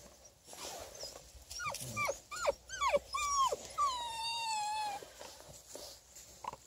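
Beagle puppies yelping and whining: a quick run of short, high yelps that drop sharply in pitch, then one longer whine of about a second.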